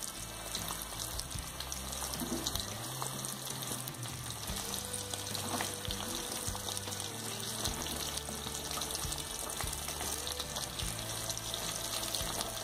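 Corn-tortilla quesadillas shallow-frying in hot oil in a pan: a steady sizzle with fine crackling.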